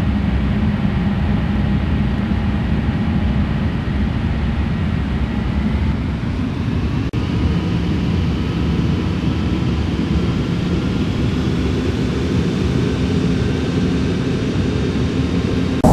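Boeing 747 jet engines running: a loud, steady rumble with a faint whine that climbs slowly in pitch. The sound drops out briefly about seven seconds in.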